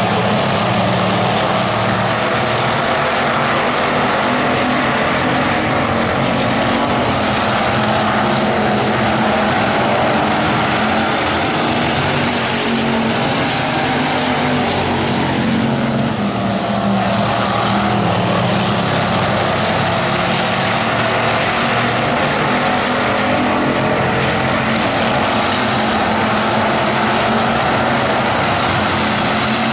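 Bomber-class stock cars racing around a speedway oval, their engines running loudly and continuously with no break.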